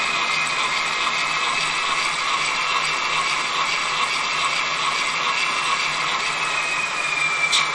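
Gauge 1 model of an E 71 electric locomotive running on a roller test stand. Its ESU LokSound decoder plays a steady electric-locomotive running whine over the whirr of the model's gears and rollers. Near the end the whine starts to fall in pitch as the locomotive slows.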